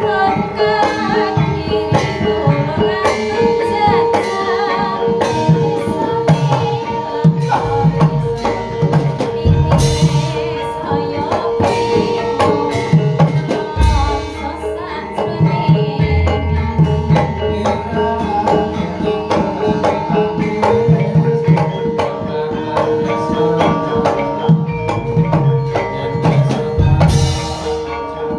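Javanese gamelan-style music: hand drums beat a busy rhythm over ringing metal percussion, with a held tone running underneath.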